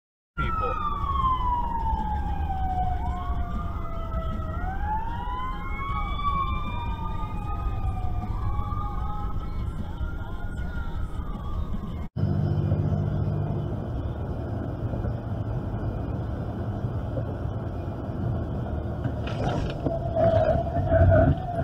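Two or more emergency-vehicle sirens wail at once, their pitches sweeping up and down and overlapping, over a low steady vehicle rumble. They cut off abruptly about twelve seconds in, leaving a steady low road and engine drone from a moving car.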